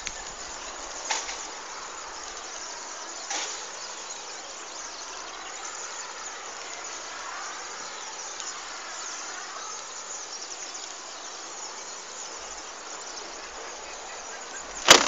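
Steady outdoor background hiss, with two faint clicks about one and three seconds in and a loud knock from the phone being handled just before the end.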